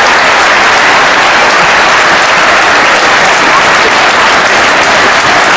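Large crowd applauding steadily, a dense unbroken clatter of clapping hands.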